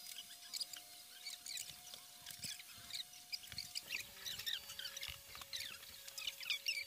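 Faint high-pitched squeaks and chirps, many short ones in quick irregular succession, over a faint steady tone that drops slightly in pitch about four seconds in.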